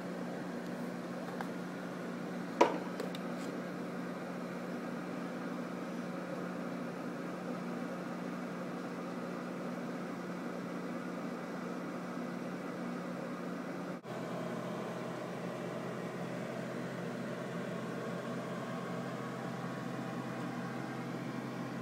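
Steady mechanical hum of saltwater aquarium equipment, with one sharp click a little over two seconds in. The hum breaks off for an instant about two-thirds of the way through and resumes slightly changed.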